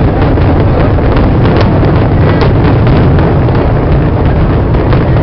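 A dense fireworks display: a steady loud low rumble of bursts with many quick crackles and pops over it.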